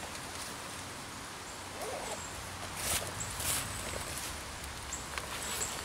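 Camp gear being handled and pulled from a pack on leaf litter: two short rustling, clattering noises around three seconds in. Faint high bird chirps and a brief low call about two seconds in sound over a quiet woodland background.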